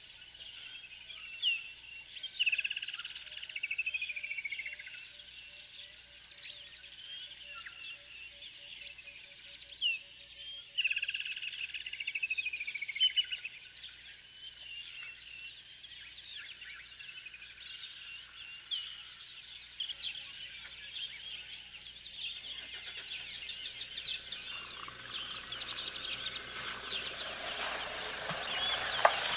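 Wild birds calling and chirping in the bush, with a long descending trill about two and a half seconds in and again around eleven seconds, and scattered quick chirps later on. A louder rushing noise builds near the end.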